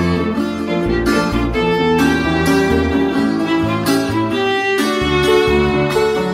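Violin playing the melody of a Colombian bambuco, accompanied by piano and the strummed tiple.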